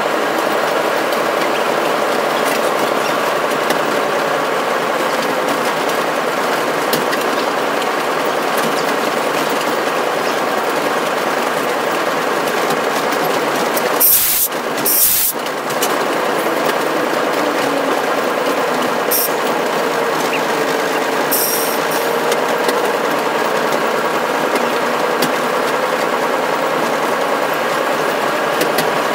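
Locomotive running, heard from inside its cab: a steady engine drone with clatter. About halfway through there are two short bursts of high hiss, and fainter ones a few seconds later.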